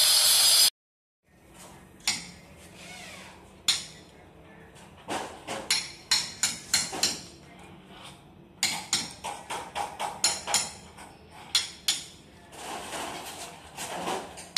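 A hammer striking a chisel, chipping a groove into a concrete floor: many sharp metal-on-stone blows, irregular, often in runs of about three a second. It opens with the last moment of an angle grinder cutting the concrete, which stops abruptly.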